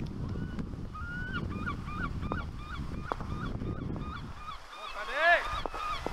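Birds, likely geese, calling in a run of short honks, about three a second, then one louder drawn-out call near the end. Wind rumbles on the microphone underneath.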